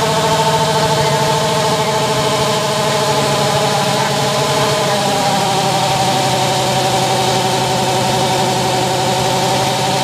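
Harley-Davidson Fat Boy's V-twin engine running steadily in gear on a stationary roller rig, its pitch easing slightly about halfway through.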